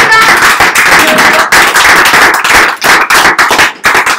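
A small group of people applauding by hand, loud and close, the clapping thinning out near the end.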